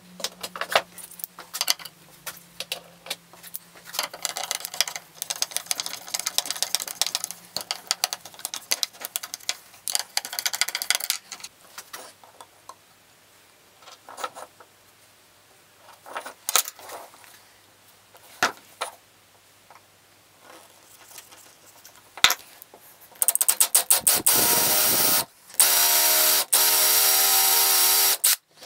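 Power drill boring into a block of 18 mm plywood in several short runs near the end, its motor running at a steady pitch while it cuts. Before that, scattered clicks and knocks of tools and wood being handled on the bench.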